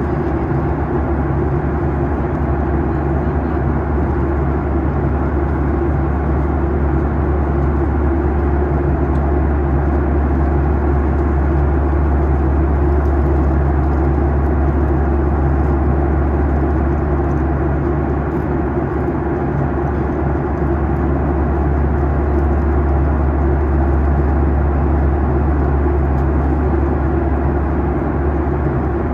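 Cabin noise of a Boeing 737-800 at cruise, heard from a forward window seat: the steady rush of airflow and the drone of its CFM56-7B turbofan engines, with a strong deep hum underneath.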